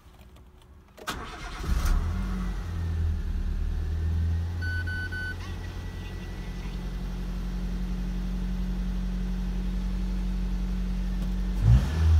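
Nissan March's CR12 1.2-litre four-cylinder petrol engine cranked by the starter and catching about a second in, then idling steadily. A short electronic beep sounds about five seconds in, and the engine sound surges briefly near the end.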